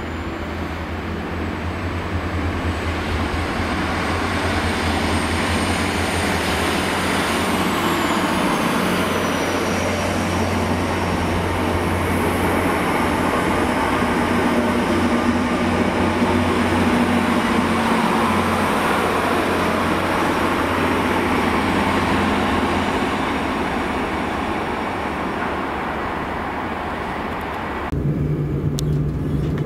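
A Transport for Wales multiple-unit passenger train pulling in and running past close by, its engine and wheel noise growing louder, with a faint high whine that slides down in pitch about eight seconds in. Near the end the sound changes abruptly to the steadier hum heard from inside a moving train.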